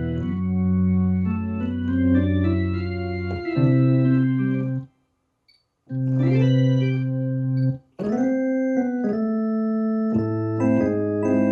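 Yamaha MODX6 keyboard playing organ presets in held, changing chords. It stops twice, about five and eight seconds in, and comes back with a different organ sound after each break.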